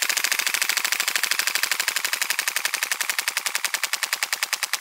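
WE-Tech SCAR gas blowback airsoft rifle firing one long full-auto burst: a fast, even string of sharp shots.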